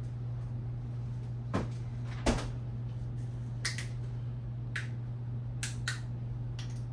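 Kitchen clatter: a handful of short sharp knocks and clicks, the loudest about two seconds in, over a steady low hum.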